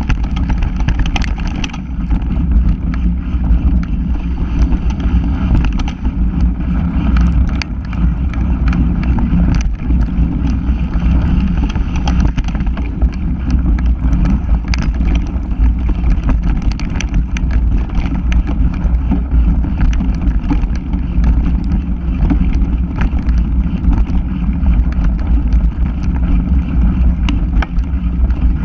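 Wind buffeting the microphone over the steady rumble of a bike's tyres rolling fast on a dirt trail, with frequent small clicks and rattles from the bike over bumps.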